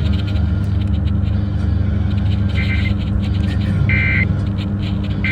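Steady low rumble of a car's engine and road noise heard inside the cabin, with the car radio playing faintly over it. Two short high-pitched electronic chirps come from the radio, about two and a half and four seconds in.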